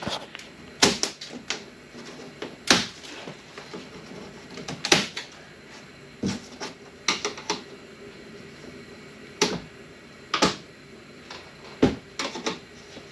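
Sharp wooden knocks and clicks, irregularly spaced, about a dozen and a half of them, from hands working on a plywood shipping crate to open it.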